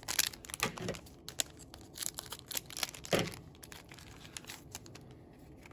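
Foil booster-pack wrapper crinkling and rustling as it is handled, a run of quick crackles through the first three seconds with one louder snap about three seconds in, then only faint handling.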